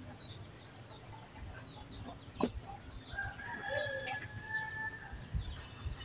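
A rooster crows once, a long call of about two seconds in the back half, with a sharp knock shortly before it.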